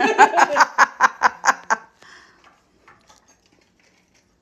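A person laughing in a quick run of about ten short bursts for nearly two seconds, then stopping; only faint small knocks follow.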